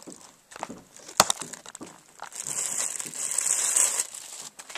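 Plastic packaging crinkling as it is handled and pulled open, with one sharp click about a second in and a longer stretch of crackling in the second half.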